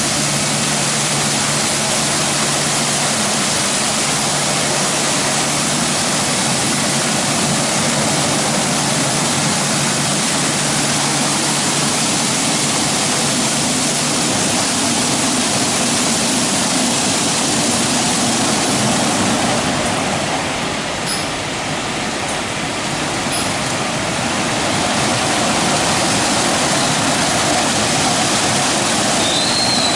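WashTec SoftWash rollover car wash during its brush wash: rotating wash brushes and water jets working over a car, a loud steady rushing spray with a low machine hum that stops about halfway through.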